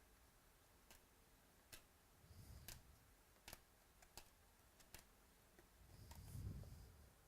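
Faint handling of trading cards: scattered light clicks and taps as cards are flipped and set down, with two soft rustling swells, one about two and a half seconds in and one near the end.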